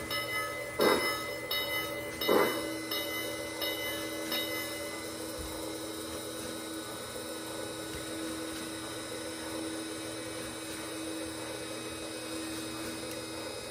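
A small electric motor on a model railway layout humming steadily, with two sharp knocks in the first three seconds.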